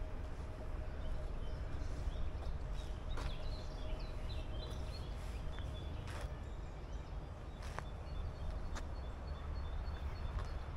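Woodland ambience: birds chirping briefly between about three and six seconds in, over a steady low rumble, with a few sharp clicks.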